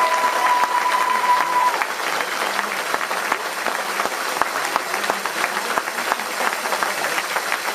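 Arena crowd applauding the end of a rally, a dense patter of many hands clapping. A steady high held tone sounds over it until about two seconds in.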